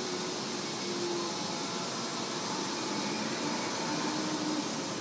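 Fukuoka City Subway 1000N-series train running, heard from inside the car: a steady rumble of wheels and air with faint traction-motor tones drifting in and out.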